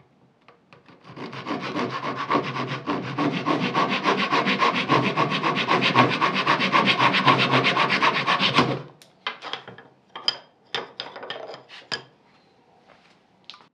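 Hand saw cutting through the end of a small wooden strip with rapid, even back-and-forth strokes for about eight seconds. It stops near nine seconds in, followed by a few light knocks of the wood being handled.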